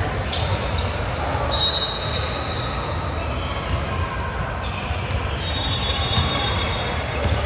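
Basketball game in a gym: the ball bouncing on the hardwood floor a few times, with sneakers squeaking in two short high squeals over a steady hum of the hall.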